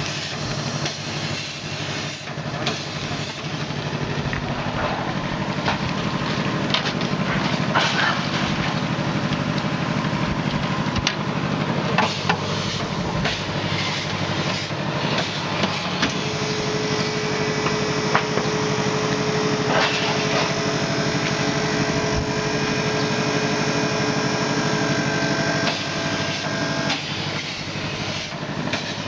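Steady hum of running electric machinery with scattered clicks and knocks of handling. A bit past halfway a steady whine joins for about ten seconds and stops near the end: the vacuum packing machine's pump drawing down its closed chamber.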